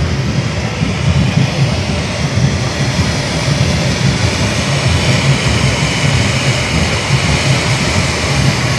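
A firework fountain spraying sparks with a steady rushing hiss over a flickering low rumble.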